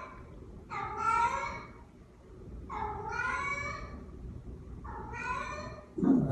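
A cat meowing repeatedly: three long, drawn-out meows about two seconds apart, after the tail of an earlier one. A louder, lower call breaks in right at the end.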